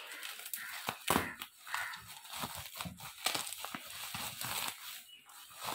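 Bubble wrap crinkling and crackling as hands pull and unwrap it, in irregular bursts, loudest about a second in.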